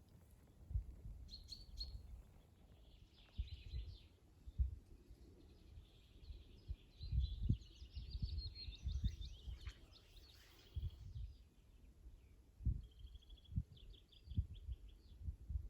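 Small songbirds chirping and trilling in short, repeated phrases. Dull low thumps come at irregular intervals underneath and are the loudest sounds.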